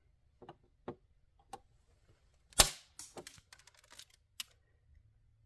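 Nippers snipping off the protruding tips of welded-in repair staples: one sharp snap of a tip cut through about halfway, with several lighter clicks of the nippers being positioned and closed around it.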